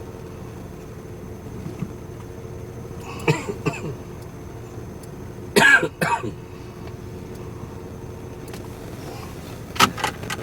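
Steady running noise inside a moving vehicle, with a person coughing in short bursts: twice about three seconds in, harder about five and a half seconds in, and again near the end.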